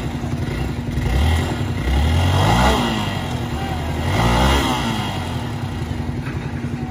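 Hero XPulse 200 4V's single-cylinder engine running, revved hard twice with the pitch rising and dropping back, as the rider gives it throttle to climb the stuck bike over a brick edge.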